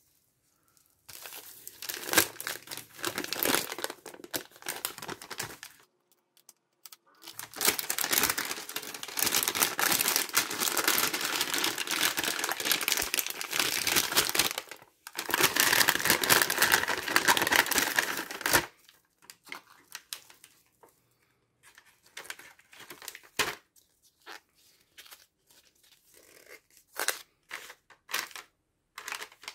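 Plastic MRE packaging being crinkled and torn while pouches are handled and opened for the flameless ration heater. The rustling comes in a few long spells, the longest about seven seconds, then dies down to scattered light taps and crinkles.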